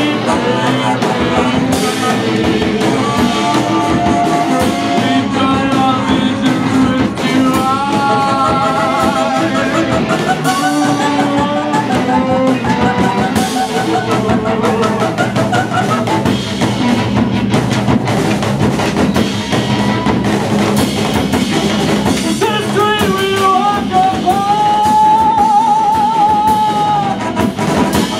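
Live band music: a drum kit and electric guitar under wavering melodic lines from reeds and voice.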